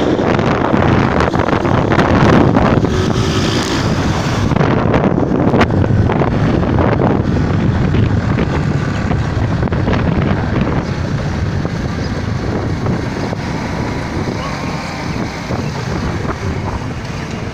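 Wind buffeting a phone's microphone over the steady running of motorcycle engines while riding along a road among other motorcycles.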